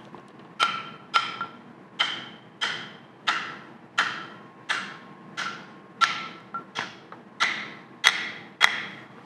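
Copper-faced mallet tapping on a lathe's cast shifter yoke, about fourteen steady blows roughly two-thirds of a second apart, each with a short metallic ring. It is driving a tight-fitting part into place.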